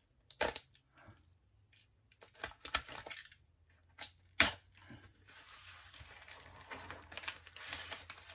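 Cardboard mailer and paper wrapping being torn and unwrapped by hand: a few sharp rips, the loudest about four seconds in, then steady rustling and crinkling of paper from about five seconds in.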